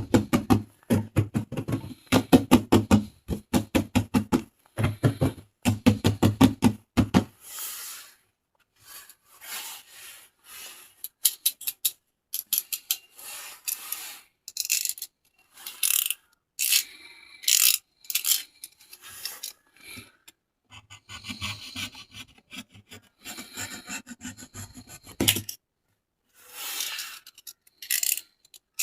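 Toy packaging being rubbed and scratched by hand for ASMR: a fast, even run of strokes for about the first seven seconds, then irregular, higher-pitched scraping and rustling with short pauses.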